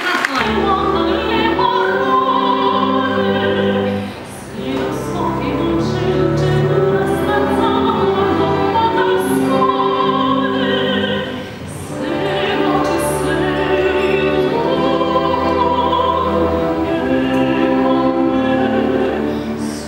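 A soprano sings operatically with a symphony orchestra accompanying her. The music eases briefly twice, about four and about eleven seconds in, between phrases.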